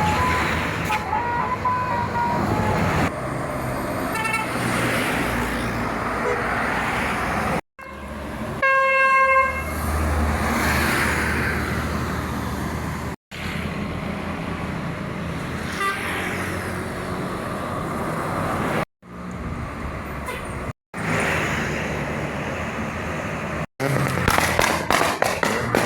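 Indonesian bus 'telolet' multi-tone horn playing short bursts of notes over bus engine and traffic noise, broken by several abrupt gaps. The loudest blast is one held tone about a third of the way in, and a quick run of notes comes near the end.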